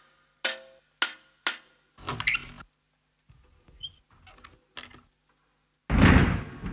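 Foley for a small clockwork figure: three hollow, ringing clicks about half a second apart as it steps, then a brief clatter and a few faint small clicks as a box is handled. A sudden loud, low rumble breaks in near the end.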